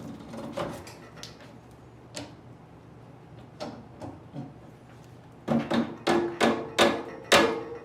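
Bicycle cassette lockring being tightened with a cassette tool and wrench, its serrated face clicking against the smallest cog. A few light clicks, then in the second half a run of about six loud, ringing metal clicks, roughly three a second.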